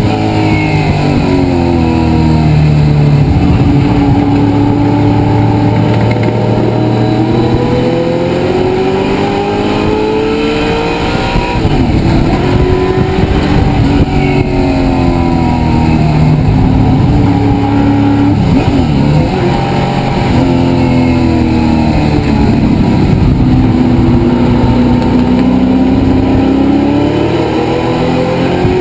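Race car engine heard from inside the cockpit, its pitch climbing under acceleration and dropping several times as the driver lifts, brakes and shifts through the corners.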